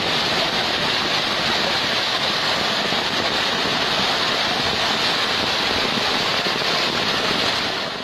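Corn-kernel-sized hail and heavy rain pelting pavement: a dense, steady hiss that fades out near the end.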